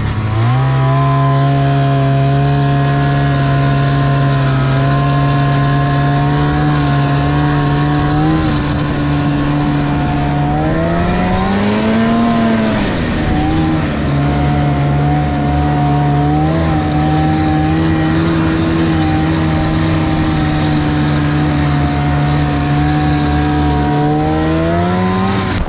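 Snowmobile engine running at speed under load, holding steady revs with one rise and fall in the middle. The revs climb again near the end and the engine sound then breaks off.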